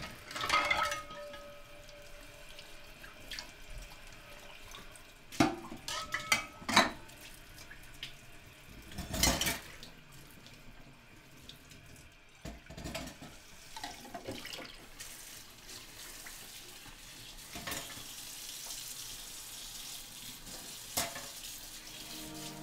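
Washing up at a kitchen sink: a tap running, with scattered clinks and knocks of dishes, the loudest of them a few seconds in. The running water is steadier toward the end.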